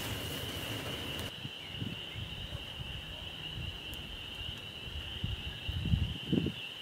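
A steady, high-pitched chorus of calling animals, with a few low rumbles near the end.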